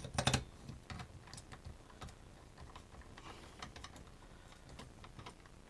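Light clicks and ticks of a screwdriver working the cylinder mounting screws into a chainsaw engine, with a quick cluster of louder clicks at the start.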